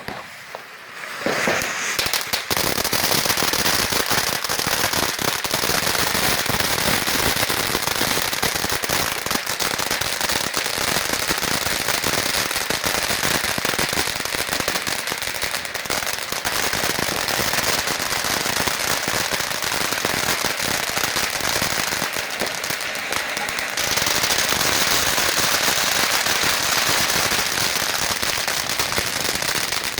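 Dense, continuous barrage of firecrackers and fireworks going off, sharp cracks overlapping with no break. It builds up over the first couple of seconds and turns brighter and hissier about three-quarters of the way through.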